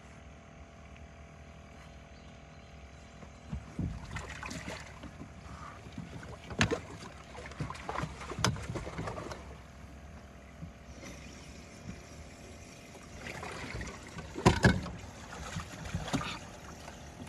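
Knocks against a small fishing boat's hull and water splashing alongside, in two clusters, the loudest knock about two-thirds of the way through, over a faint steady hum.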